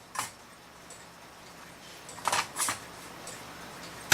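A few light clicks and taps of small clock parts being handled: one near the start and two or three close together about halfway through.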